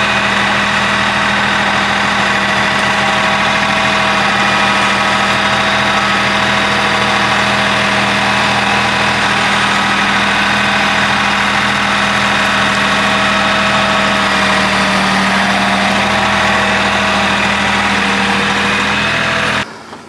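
Kioti CK-series compact tractor's diesel engine running steadily at an even idle. It keeps running while the operator stands up out of the seat, because the seat safety switch has been bypassed.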